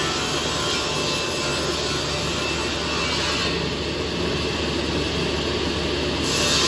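Multi-blade circular ripsaw running and ripping wood fed through it: a steady sawing noise with a high hiss that eases off past the middle and comes back near the end.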